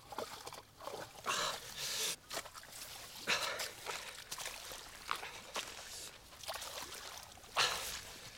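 Irregular rustling and squelching of movement through wet bog and heather, in short uneven bursts.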